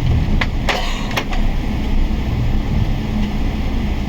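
Steady loud rumble of a Boeing 777-300 airliner's jet engines and airframe heard from inside the passenger cabin just after takeoff. Three sharp clicks or rattles sound about half a second to a second in.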